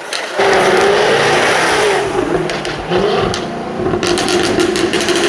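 Jaguar F-Type R's supercharged V8 at high revs under hard throttle. It comes in suddenly about half a second in, holds a steady pitch, and breaks into a rapid crackle of exhaust pops near the end.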